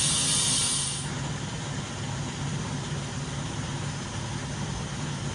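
Compressed air hissing as a tyre on a repaired cast aluminium wheel is inflated, cutting off about a second in, then a steady low hum.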